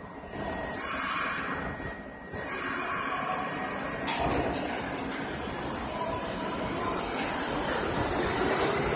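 An R62A subway train at the platform gives a loud burst of air hiss for about a second and a half from its brake and air system. The train then starts pulling out, its running noise growing louder with faint rising tones as it picks up speed.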